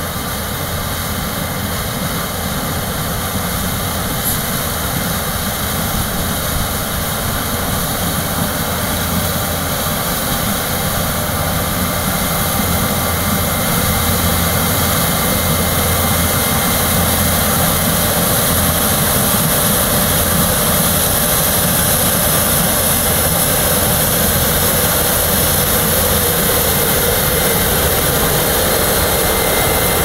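CLAAS Lexion 580 combine harvester running under load while it cuts corn with an 8-row Geringhoff Rota Disc header: a steady drone of engine and threshing machinery with a high hiss on top. It grows gradually louder as the combine comes closer.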